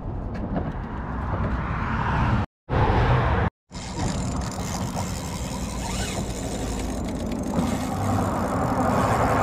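Steady outdoor rumble and hiss with handling rustle from the body-worn camera, cut out to dead silence twice, briefly, about two and a half and three and a half seconds in.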